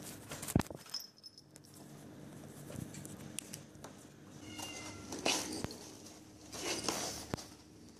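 Kittens at play right at the microphone. There is a sharp knock about half a second in and a faint, short high mew around four and a half seconds. Two short noisy bursts follow near five and seven seconds, the first the loudest.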